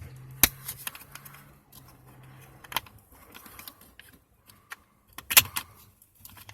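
Sharp plastic clicks and knocks as a replacement turn-signal flasher relay is pushed at its socket in the fuse box under the steering column, with louder clicks about half a second in, near three seconds and around five and a half seconds. The relay is too long to seat.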